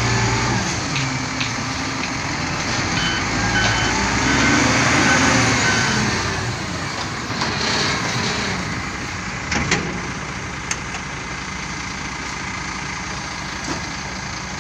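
XCMG ZL50G wheel loader's diesel engine running hard, its speed rising and falling as the loader dumps soil and digs into a pile. A few short warning beeps come in the first half, and a couple of sharp clicks about two-thirds through.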